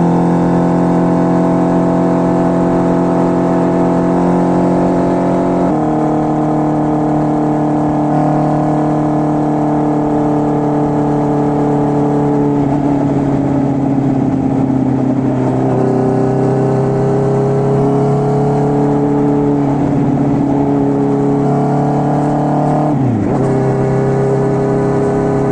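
Honda CB650R's inline-four engine through an SC Project full exhaust system, running steadily at a held engine speed. Its pitch steps to a new level about 6 s in and shifts again midway, with a quick drop and recovery near the end.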